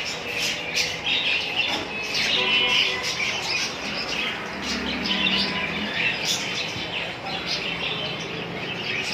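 Several small pet parrots, kept as love birds, chattering and chirping continuously in quick, high overlapping calls.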